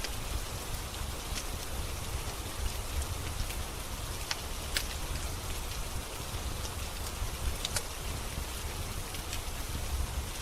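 Steady rain with a wood fire crackling over it: a continuous hiss and low rumble, broken by scattered sharp pops about once or twice a second.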